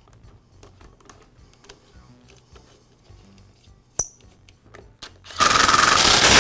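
Soft ticks of a plastic trimmer fuel tank being handled and seated, a sharp click about four seconds in, then a power screwdriver running for about a second with a steady whine, driving in a fuel-tank mounting screw.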